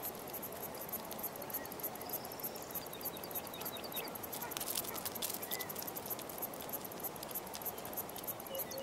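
Quiet outdoor nature ambience of scattered light clicks and ticks, with a brief run of quick high chirps about two and a half seconds in.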